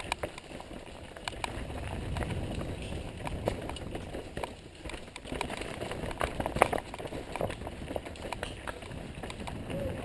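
Mountain bike rolling fast down a trail: a steady low rumble of tyres on the ground with frequent sharp clicks and rattles from the bike as it hits bumps.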